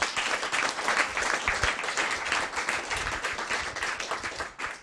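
Audience applauding, a dense patter of many hands clapping that ends just before the close.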